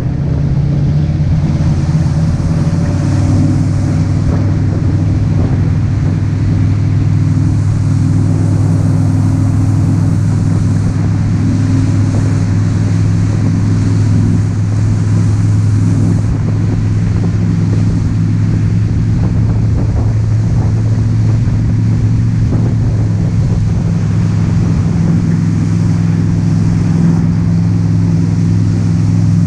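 Motorboat engine running steadily at planing speed, a constant low drone over rushing water and wind noise.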